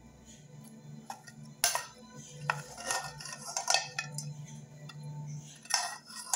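A metal utensil clinking and scraping against a metal cooking pot as food is served out of it onto a plate, with a handful of sharp clinks between about one and four seconds in and another near the end.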